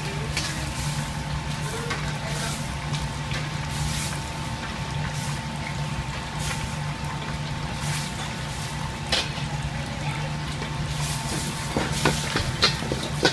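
Metal spatula stirring and scraping through water in a wok, with splashing and scattered clinks against the pan that come thicker near the end, over a steady low hum.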